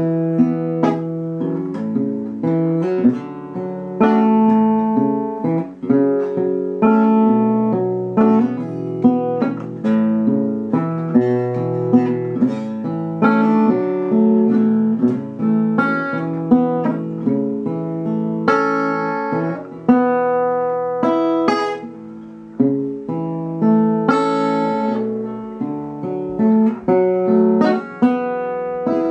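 Guitar played solo, without singing: a tune picked out note by note, with chords ringing under it.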